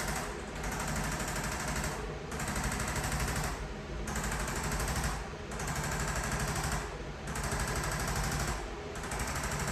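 Electric percussion massager (massage gun) hammering rapidly against the patient's body, easing off briefly about every second and a half.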